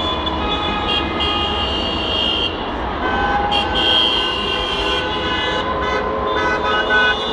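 Many car horns honking at once, overlapping steady tones that start and stop every second or so over the low rumble of traffic: drivers honking in celebration of a victory.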